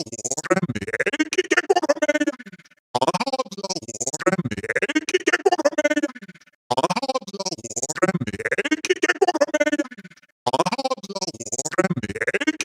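Synthesized robotic voice, rapidly stuttering and glitching. The same passage of about four seconds repeats three times, each time fading out into a brief gap before starting again.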